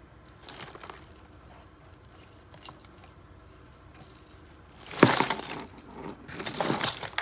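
A heap of loose costume jewelry (faux-pearl strands, beads, chains and bracelets) clinking and jangling in a cardboard box as a hand rummages through it, with two louder bursts of rattling near the end.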